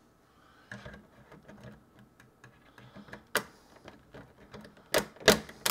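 Small plastic taps and clicks as a Google Nest Learning Thermostat display is handled and pressed onto its wall base, ending in two sharp snaps as it seats on the base connector.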